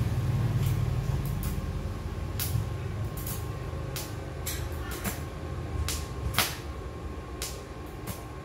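Scattered light knocks and clicks of objects being handled in a workshop, irregular and a few seconds apart, with one louder knock about six seconds in, over a steady low hum.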